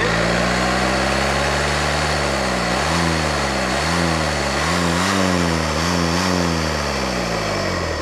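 Citroen DS3's 1.6 e-HDi four-cylinder diesel engine revved from idle, held up, then blipped four times in quick succession before dropping back toward idle. The engine's turbo has failed and is pushing oil into the intercooler pipe.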